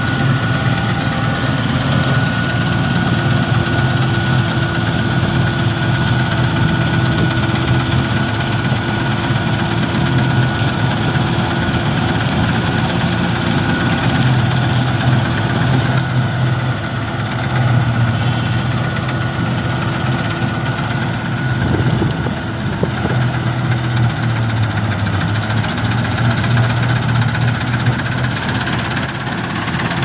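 Laverda combine harvester running steadily as it cuts standing wheat, its engine drone with a slightly wavering pitch over broad mechanical noise from the header. A thin steady whine sits above it for the first ten seconds or so.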